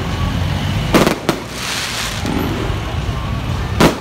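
Aerial firework shells bursting overhead: a pair of sharp bangs about a second in, and another just before the end, each followed by a hissing crackle as the stars spread, over a steady low rumble.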